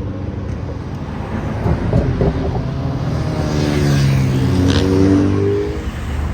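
Car engine running, then revving up with its pitch climbing for about two and a half seconds before it backs off near the end.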